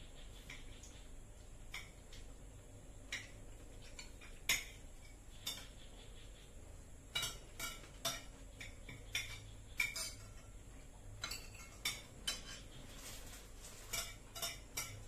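Spoon clinking and scraping against bowls and dishes while eating, in light irregular knocks that come more often in the second half.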